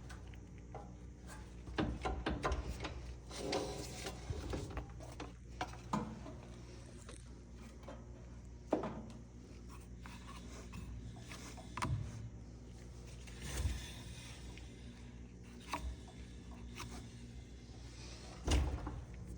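Handling noises from work on a dryer: scattered knocks and clicks with bouts of scraping and rubbing, over a steady low hum. The loudest knock comes near the end.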